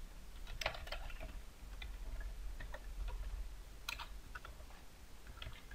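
Typing on a computer keyboard: scattered, irregular key clicks over a low steady hum.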